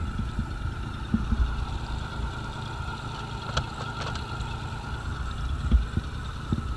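A small fishing boat's engine running steadily under way, a low rumble with a steady whine above it and a few light knocks.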